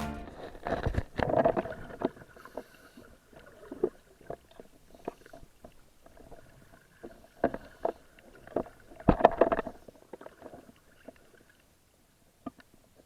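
Muffled, irregular knocks and rumbles of underwater sound as picked up by a camera in a dive housing, with louder clusters about a second in and again around nine seconds in, over a faint steady tone.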